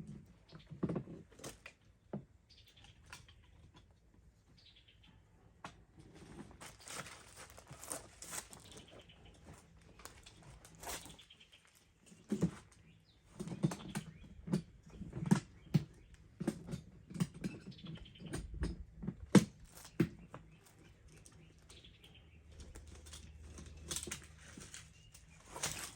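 Irregular clicks, knocks and rustling of objects being handled and moved about, with a few sharper knocks in the middle.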